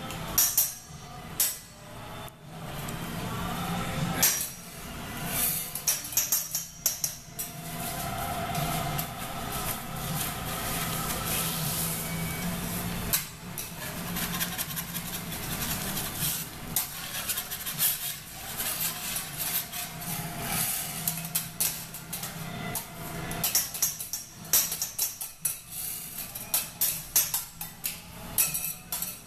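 Metal spatulas clacking and scraping on a teppanyaki steel griddle, in quick runs of clinks through the first several seconds and again near the end, over the steady sizzle of food frying on the hot plate.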